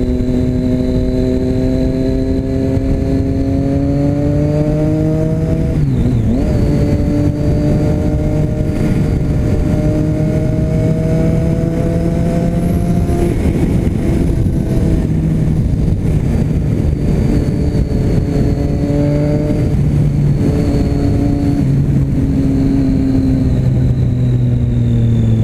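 Motorcycle engine running through an aftermarket Jeskap exhaust with its baffle still fitted, pulling up through the revs, dropping sharply at a gear change about six seconds in, then climbing again and holding with small rises and falls before easing off near the end.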